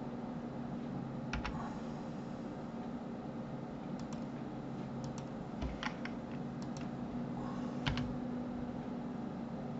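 Computer keyboard keys and mouse buttons clicking: about ten short clicks, single or in quick pairs, over a steady low hum.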